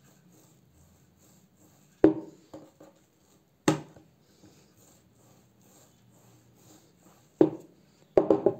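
Wooden rolling pin working dough on a wooden board: a few sharp wooden knocks, one about two seconds in, another a little later, and a quick run of knocks near the end, with faint rolling and rubbing between them.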